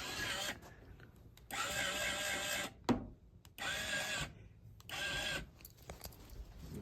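Small DC motor of an electronic deadbolt lock running in several short whining runs, each up to about a second long, as it drives the bolt out and back in during a function test. A sharp click comes about three seconds in.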